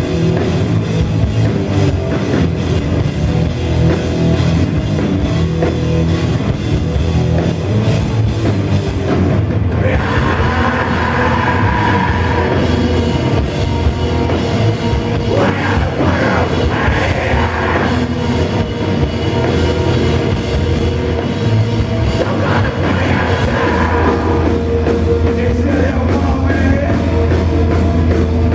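Live heavy rock band playing loud electric guitars, bass guitar and drum kit, with a singer's voice at times.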